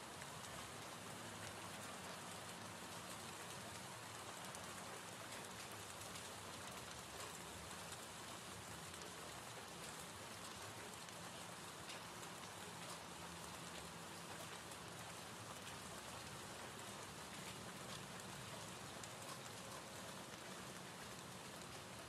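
Soft, steady rain ambience: a recorded gentle-rain background track.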